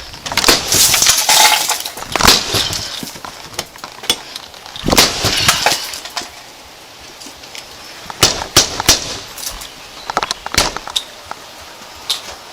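A hammer and a pry tool banging and scraping at the locked door of a camper to force it open, in loud bursts of rattling, clattering blows a few seconds apart.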